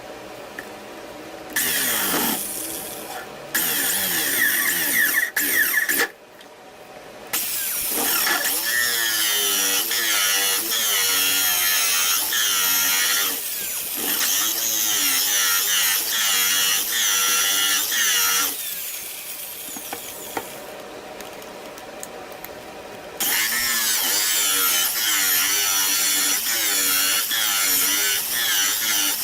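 Electric power tool working wood, running in three spells with quieter pauses between, its whine wavering up and down in pitch.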